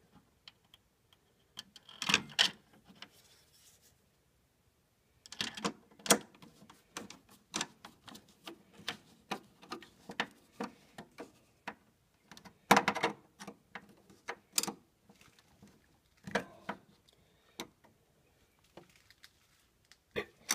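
Irregular metallic clicks and taps, some in quick runs, from a screwdriver and screw being worked in a steel breaker box, as when the green bonding screw that ties the neutral bar to the panel is fitted.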